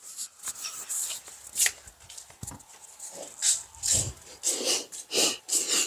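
A person's breathy, wheezing laughter, in quick short gasps with little voice in them.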